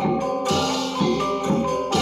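Balinese gamelan gong ensemble playing: bronze metallophones ringing in interlocking figures over a low struck beat about twice a second.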